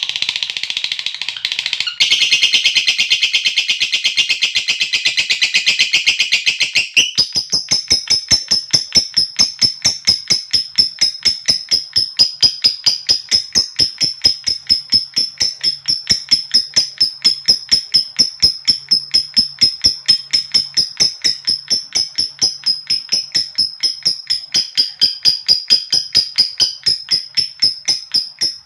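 Lovebird giving its long ngekek call: a harsh, rapid chatter for the first few seconds, then a long, even run of fast, high-pitched clicking notes.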